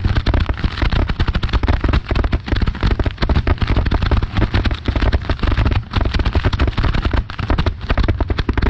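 Dense, nonstop barrage of aerial fireworks shells bursting, many sharp explosions a second with no gap between them, typical of a fireworks finale.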